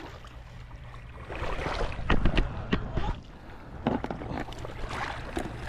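Irregular splashes and knocks in shallow water, with a steady low hum of wind on the microphone underneath.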